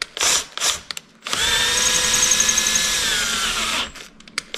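Cordless drill boring a 0.257-inch hole into a soft cast Powerglide transmission pump body. It gives two short trigger bursts, then runs steadily for about two and a half seconds, sagging slightly before it stops, with a couple of quick blips near the end.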